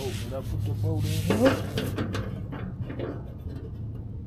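Metal hand tools clinking and rubbing while car fender bolts are worked loose, with indistinct muttering in the first two seconds. A steady low hum runs underneath.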